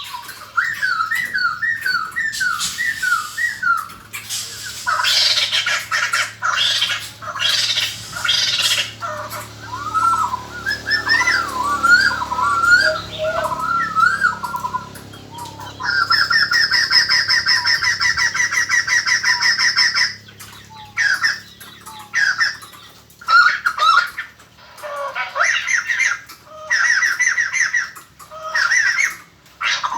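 White-crested laughingthrush calls: strings of short rising whistled notes mixed with loud, harsh cackling chatter. About sixteen seconds in comes a long, rapid rattling trill lasting some four seconds.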